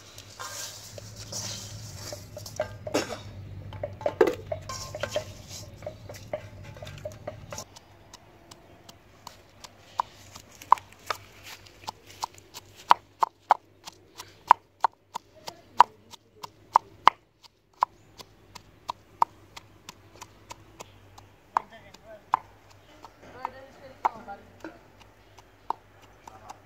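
Wooden pestle pounding sliced onion and garlic in a clay mortar: a steady run of sharp knocks, about one or two a second, pausing briefly partway through. Softer handling noise comes before the pounding starts.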